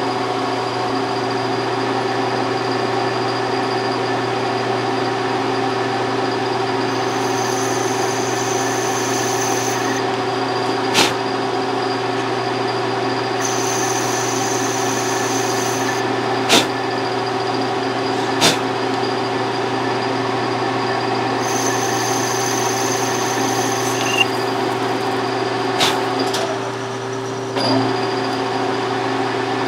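Metal lathe running steadily at a slow spindle speed, its motor and gearing giving a steady hum, while a radius form tool is plunged into a Delrin part. A high hiss comes and goes three times, several sharp clicks stand out, and the machine sound dips briefly near the end.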